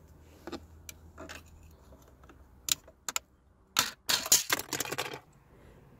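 Plastic dashboard trim clicking and rattling as it is pried loose from its clips: a few separate clicks, then a burst of dense rattling about four seconds in.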